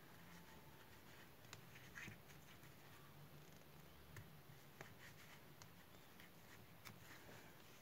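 Near silence with a faint low hum and scattered faint scratches and clicks: a crochet hook pulling yarn through tightly worked single crochet stitches.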